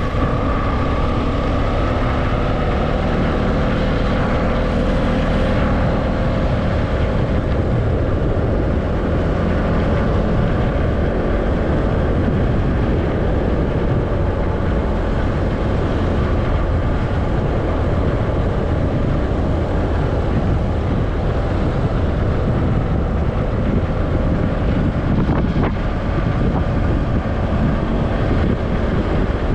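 Steady vehicle running noise while travelling along a road, engine and road rumble mixed with wind on the microphone.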